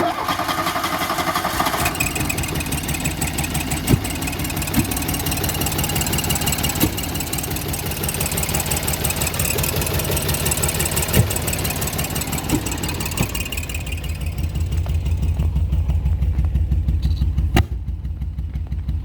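A 1985 VW Golf Cabriolet's four-cylinder engine idling, with sharp pops at irregular moments; the low rumble gets louder near the end. The engine is misfiring, which the owner suspects comes from bad ignition or cam timing, or else from the injectors or a vacuum leak.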